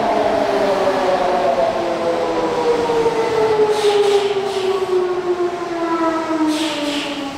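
Odakyu 1000 series train's GTO-VVVF inverter and traction motors whining in several tones that fall steadily in pitch as the train slows under braking. Short hisses of air come in about four seconds in and again near the end.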